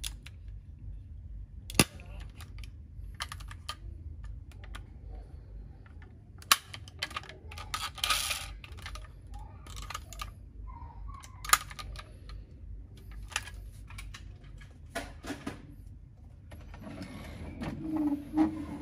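Small, irregular clicks and snaps of a die-cast metal toy ambulance's hinged rear door and bonnet being opened and pressed shut by hand, with a sharper click about two seconds in. Near the end a louder, lower droning sound starts up.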